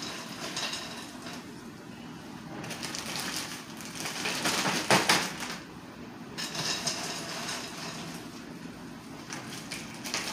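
Ice cubes clattering into a large zip-top plastic bag, with the bag crinkling, in several spells that are loudest about halfway through.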